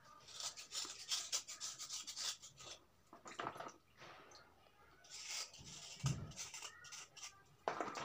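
Kitchen knife blade scraping a wet piece of soft slate stone, a quick run of rasping strokes over the first few seconds and a few more scrapes after. A dull knock about six seconds in, and near the end a splash as the stone is dipped into the tub of water.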